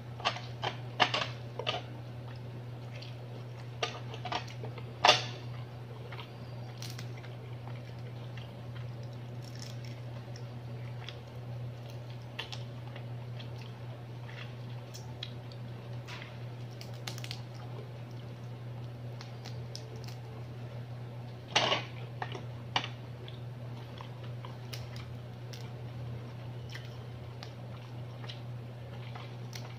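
Cooked mud crab being picked apart by hand and eaten: scattered sharp cracks and clicks of shell, with wet squishing and chewing. The cracks come in clusters, loudest about five seconds in and again near the twenty-two-second mark, over a steady low hum.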